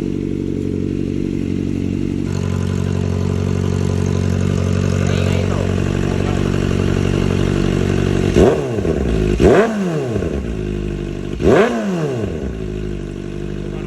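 Kawasaki ZX-4RR's 399 cc inline-four idling steadily through an aftermarket Orion VMAX Racing muffler. About eight seconds in it gets three quick throttle blips, each rev shooting up sharply and dropping straight back to idle.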